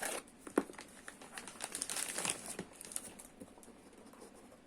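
Packaging crinkling and tearing as a parcel is opened by hand, with a run of sharp crackles, the loudest about half a second in, thinning out over the last second or so.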